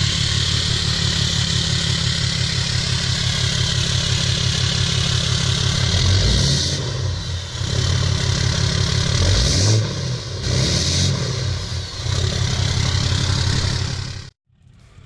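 Cummins diesel engine of a deleted (emissions-removed) Ram running through a 4-inch turbo-back straight-pipe exhaust, a deep pulsing note with a couple of swells in revs. It cuts off abruptly near the end.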